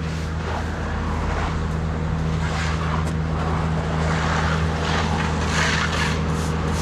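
An engine running steadily at constant speed, a low even drone.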